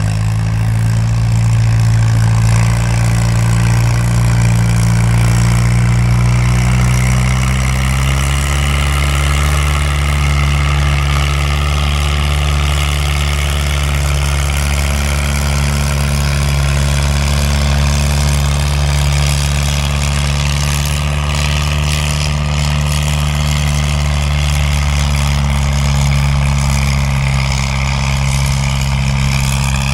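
Antique farm tractor engine running under load, pulling a weight-transfer sled at a tractor pull. It holds a steady, even speed, with a slight rise in pitch about eight seconds in.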